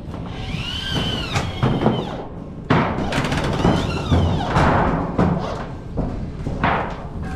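Long-span metal roofing sheet being handled, flexing with a warbling, bending metallic tone and banging with knocks and thuds.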